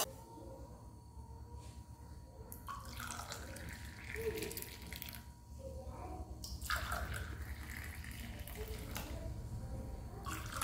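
Faint running water with a few light knocks of kitchenware over a low steady hum.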